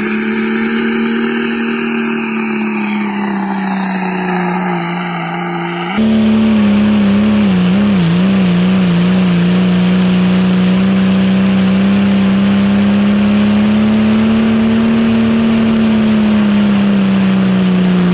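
Modified diesel Dodge Ram pickup engine running flat out at high revs while pulling a weight sled, a steady, loud note that rises and sags slowly. About six seconds in it becomes louder and closer, and soon after its pitch wobbles quickly for a couple of seconds as the revs surge up and down under load.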